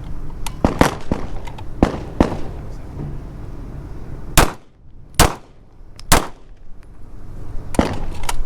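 Gunshots from firearms fired on a shooting range. There are several separate shots, with three very loud close shots spaced about a second apart in the middle, and fainter shots before and after them.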